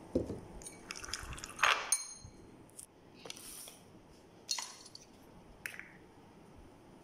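Metal spoon stirring a thick spice-and-oil marinade in a ceramic bowl: scattered clinks and scrapes against the bowl, one clink ringing briefly about two seconds in.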